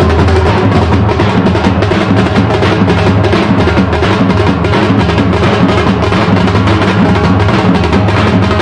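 Loud music driven by fast, steady drumming, with no let-up.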